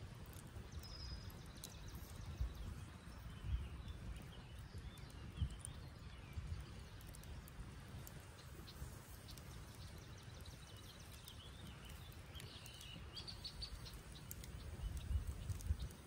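Wood campfire crackling with sharp pops, a cluster of them near the end, while small birds chirp and sing in the background over a low rumble.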